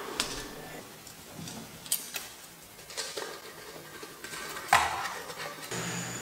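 Light clicks and knocks of hard objects being handled on a stone countertop as a clear plastic cover is lifted off a small statue, a handful of separate taps with the loudest knock near the end.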